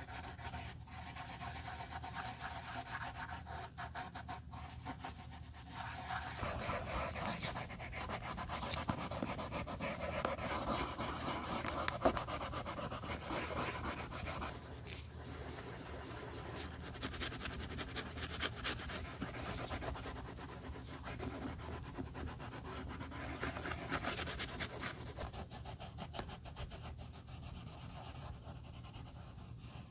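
A folded cloth pad held in tweezers rubbing back and forth over smooth leather: a scratchy swishing in rapid repeated strokes that swells and eases, with one sharper tap about twelve seconds in.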